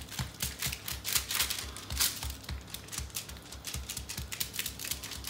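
Hand pressing and patting stuffed msemen dough flat on parchment paper: a quick run of light taps and paper rustles, over background music with a steady low beat.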